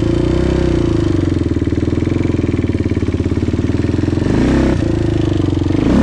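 Kawasaki KFX 400 quad's single-cylinder four-stroke engine running at low speed under light throttle. Its pitch dips and picks back up about four and a half seconds in.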